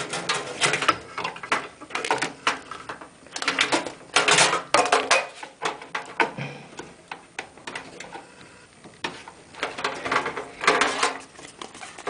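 Irregular plastic rustling and clicking as an IDE ribbon cable is handled and fitted inside a computer case, in several clusters with quieter gaps.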